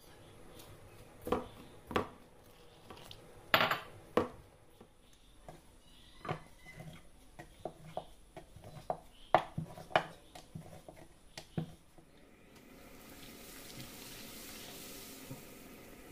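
Scattered knocks and clinks of kitchenware as atta dough for luchi is mixed in a steel bowl and rolled out with a rolling pin. About twelve and a half seconds in they give way to the steady hiss of luchi deep-frying in hot oil in a kadai.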